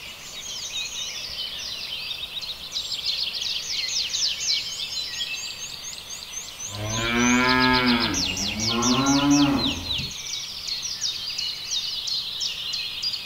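A cow moos once about halfway through, a long moo of about three seconds with a short break in the middle. Rapid high chirping runs throughout behind it.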